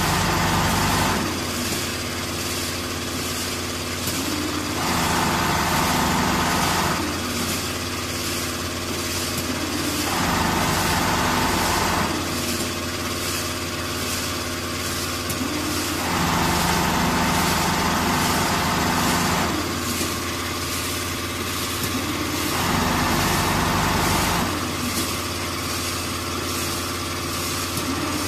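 Richpeace four-head CNC sewing machine stitching a quilt pattern through fibre-filled jacket panels: a fast, steady needle clatter over a motor hum. It grows louder for a couple of seconds every few seconds.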